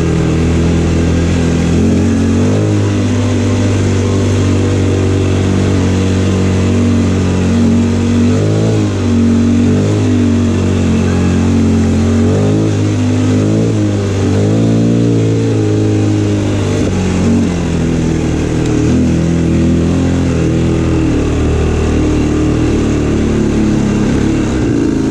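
Linhai 300 ATV's single-cylinder four-stroke engine running while the quad is ridden, its pitch rising and falling repeatedly with the throttle.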